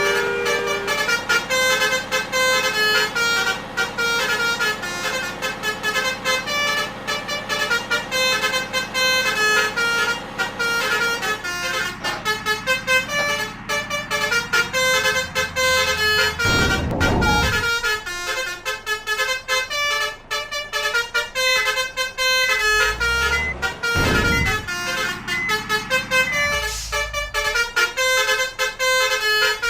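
Bus telolet basuri horns playing tunes: a run of short multi-tone horn notes stepping up and down in pitch without a break. Deep engine rumble swells as heavy vehicles pass, about halfway through, again a few seconds later and near the end.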